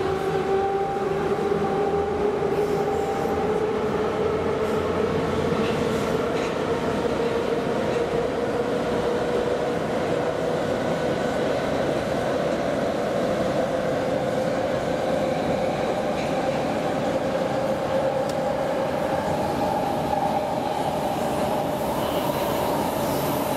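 Warsaw metro train running through the tunnel as heard from inside a car, the rumble of its wheels under an electric traction motor whine that rises slowly in pitch as the train picks up speed out of a station.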